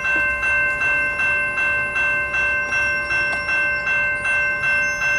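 Railway crossing warning bell ringing fast and evenly, nearly three strokes a second, each stroke ringing on into the next. The bell signals that a train is approaching.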